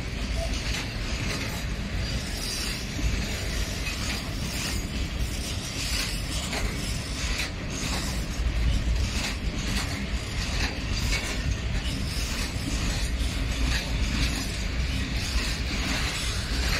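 Freight train of loaded open wagons rolling past close by: a steady low rumble of steel wheels on the rails with irregular metallic clicks, clanks and rattles from the wagons.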